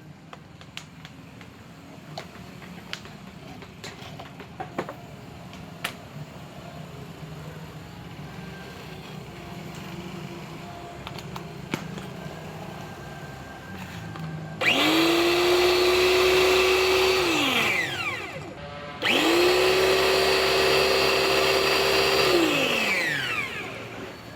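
Electric motor of an H&L high-pressure washer switched on twice. Each time it starts suddenly, runs at a steady high pitch for about three seconds, then winds down with falling pitch after switch-off. Before that there are only faint clicks and a low hum.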